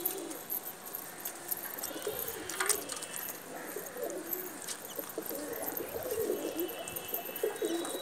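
Bijnori and Malwai domestic pigeons cooing over and over, low warbling calls overlapping throughout.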